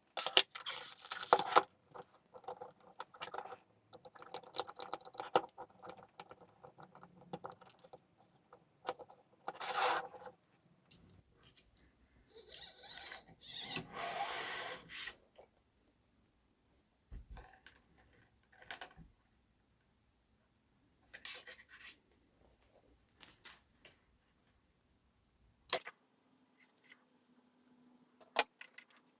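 Small hard parts and tools handled on a workbench: scattered clicks, rattles and scrapes with pauses between them, and a longer scraping stretch near the middle.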